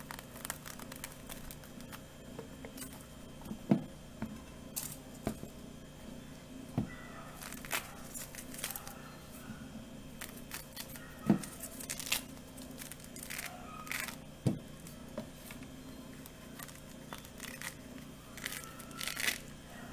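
Ponkan tangerine being peeled and pulled apart by hand: soft tearing and ripping of the peel and pith, with scattered sharp clicks, over a low steady hum.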